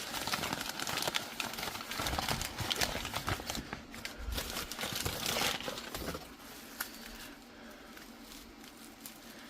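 Hands opening a mailed package, with its wrapping crinkling, rustling and tearing for about six seconds before the handling dies down.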